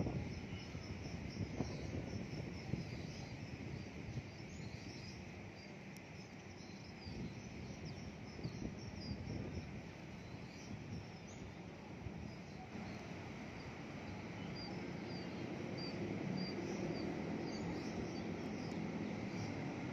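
Outdoor city ambience: a steady low rumble that grows slowly louder in the second half, with small birds chirping in short, high notes above it.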